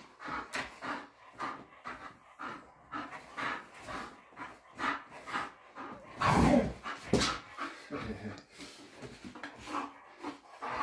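A dog panting hard in quick, rhythmic breaths, about two a second, while tugging on a rope toy. There is a louder, heavier noise about six seconds in.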